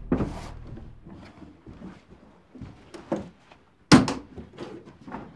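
Thuds and knocks on wooden attic floorboards as people climb up through a floor hatch, irregular, with the heaviest thump about four seconds in.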